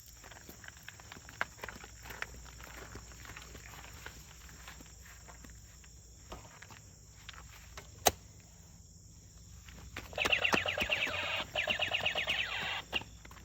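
Plastic toy pieces handled with scattered clicks and knocks, then a toy gun's electronic rapid-fire sound effect from its small speaker, a fast rattle lasting about three seconds with a brief break in the middle.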